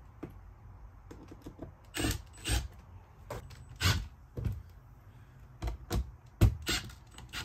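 Cordless drill-driver running in a series of short bursts, driving screws for the window blind brackets, mixed with knocks as the blind is handled.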